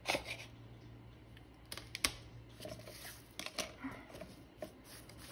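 Faint, scattered taps, clicks and rustles of hands at a craft table: a plastic-cased ink pad being handled and dabbed, and a sheet of packing foam being lifted.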